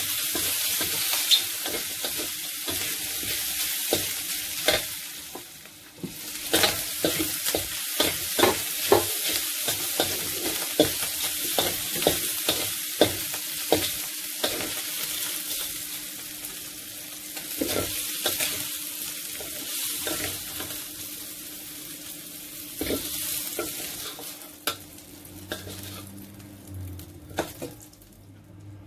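Pork and octopus sizzling as they stir-fry in a metal wok, with a metal spatula scraping and clacking against the pan. The sizzle dips briefly about six seconds in and fades over the last few seconds.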